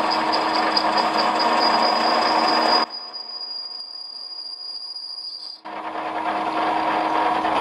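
Metal lathe running, its radius cutter turning an aluminium compressor diffuser: a steady mechanical noise with a low hum and a thin high whine. It drops back about three seconds in and comes back up about two and a half seconds later.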